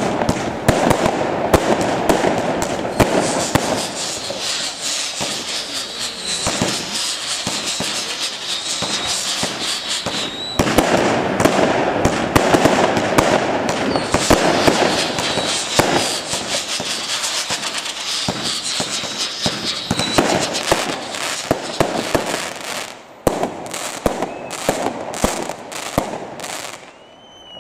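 Fireworks display: aerial shells bursting in a dense run of bangs and crackling, with a few short whistles. The bangs thin out to separate reports near the end.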